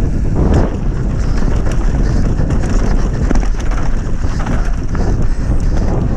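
Wind buffeting the microphone over the steady rumble of an enduro mountain bike descending a dirt trail at speed, with the rattle and clatter of the bike bouncing over the ground.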